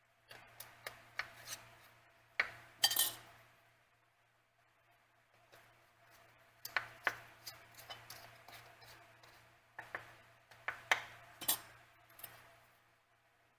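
Metal screw bands being twisted onto filled glass half-pint canning jars: clusters of sharp clicks and clinks of metal on glass, with short gaps between jars.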